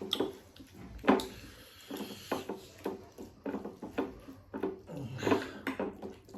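Close-up eating sounds: irregular chewing, wet mouth clicks and smacking, one after another with short gaps.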